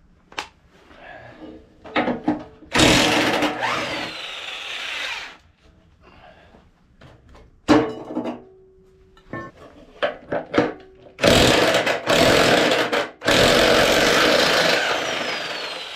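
Handheld electric drill with a socket run in several bursts to spin the blade nuts off a mower deck's spindles, its whine falling away as each burst ends. Clicks and clanks of the socket and steel blades being handled come in between.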